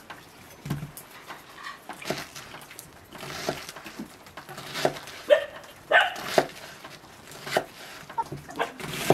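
Large kitchen knife slicing through wedges of red cabbage and striking the wooden cutting board, about one cut a second.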